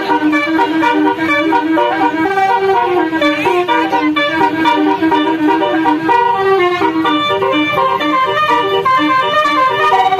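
Telolet basuri bus horn playing a melody: a continuous run of short horn notes stepping up and down in pitch.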